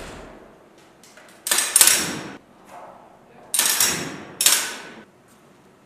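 Four sharp shot reports from a cable-tethered training pistol in a weapons simulator, two close together about a second and a half in and two more a little after three and a half seconds, each ringing briefly in the small room.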